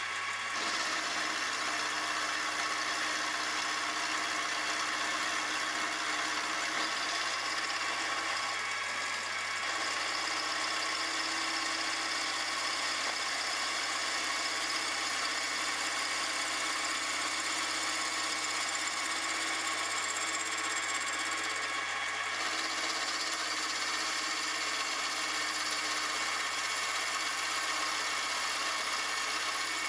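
Milling machine running with an end mill taking a cut along a metal connecting rod, milling the shank to width. A steady machine whine with several tones over the noise of the cut.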